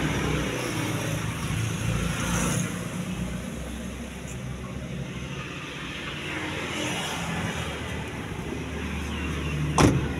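A car engine idling steadily, with a sharp knock just before the end.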